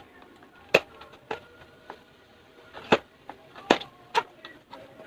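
Boya BY-MM1 microphone box being opened and handled by hand: about five sharp clicks and taps of packaging, spaced irregularly, the first a little under a second in.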